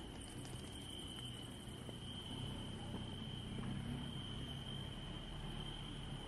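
Crickets calling in one steady, unbroken high-pitched trill, over a low background rumble.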